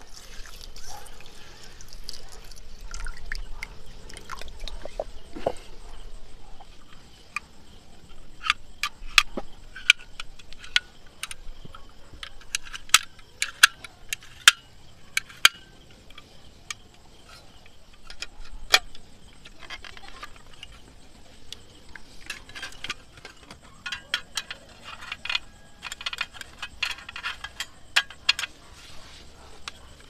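Scattered sharp clicks and light clinks, as of small hard objects being handled, with some water sounds; the clicks come thickest in two clusters, about a third of the way in and again near the end.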